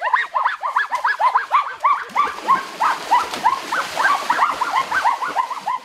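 Water splashing as two boys run through a shallow creek, starting about two seconds in, under a quick, regular series of high rising-and-falling cries, three to four a second.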